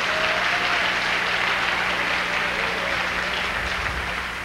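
A congregation applauding, a dense steady clatter of many hands that begins to ease off near the end.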